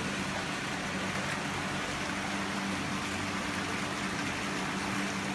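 A machine running steadily: a constant low hum under a broad, even hiss.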